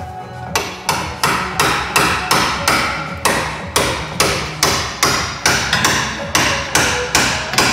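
Hand hammer pounding steel on a Corsa's front suspension from underneath, about three hard blows a second starting about half a second in, to break the seized lower ball joint free.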